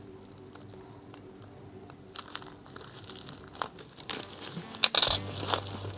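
Black plastic wrapping and packing tape around a seedling's root ball being cut and pulled open: crinkling plastic with scattered clicks, getting busier about two seconds in, with a sharp click and a louder burst of crinkling near the end.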